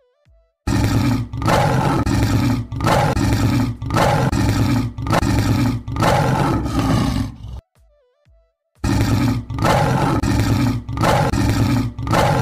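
Lion roaring: a long series of repeated deep calls, each under a second, breaking off about two-thirds of the way through and then starting again.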